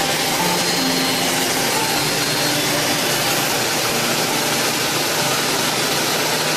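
A CNC double-sided copy shaper running: a steady, even rushing noise from the machine with no breaks.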